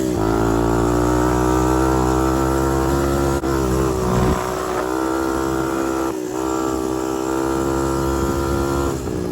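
Honda TRX250X ATV's single-cylinder four-stroke engine running steadily under way, with a couple of brief dips in the note, about three and a half and six seconds in.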